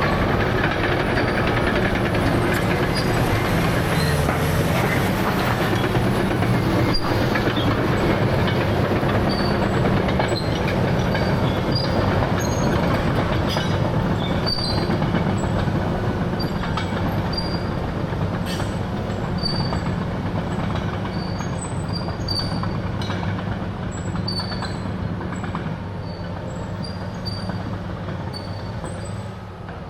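CAT D6R crawler dozer with its C9 diesel running steadily, its steel tracks clanking, with many short high squeaks and chirps scattered throughout. The sound eases off a little near the end.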